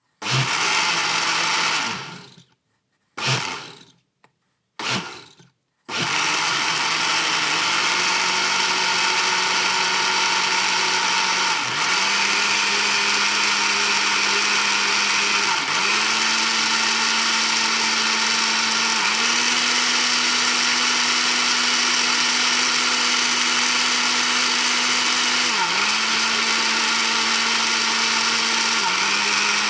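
Electric kitchen blender, pulsed in three short bursts that spin down into silence, then run continuously. Its motor hum steps to a new pitch several times as it is switched between speeds.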